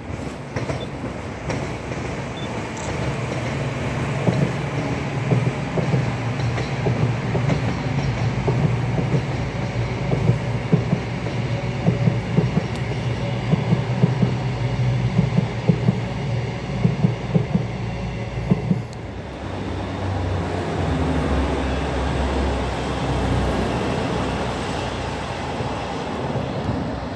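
A passenger train passing below on the main line, its wheels clattering rhythmically over the rail joints and points with a heavy low rumble. Just before the last third the clatter stops, and a lower, steadier rumble follows.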